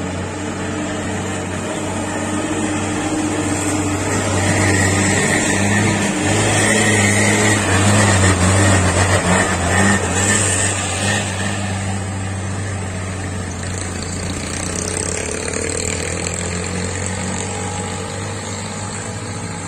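Heavy diesel truck engine labouring in low gear up a steep grade, growing louder as the loaded dump truck comes close, loudest about eight seconds in, then fading as it pulls away.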